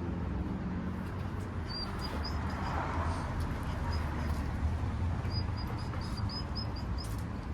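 Steady low background rumble, with two runs of faint, high, rapid chirps: one about two seconds in, and another a few seconds later.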